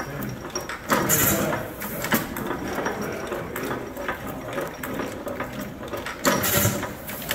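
Antique horizontal stationary gas engine running, its crank, valve gear and governor clattering steadily, with two louder bursts about five seconds apart, one about a second in and one near the end.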